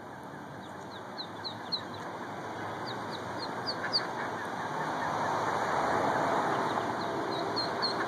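Mallard ducklings peeping: short, high, falling peeps in quick runs of three or four, over a background rush that swells in the middle and eases toward the end.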